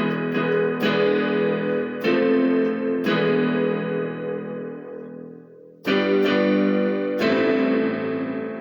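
Electronic keyboard playing an original instrumental piece: struck notes and chords that ring and die away, fading almost out about five seconds in, then two last chords a little over a second apart that ring out.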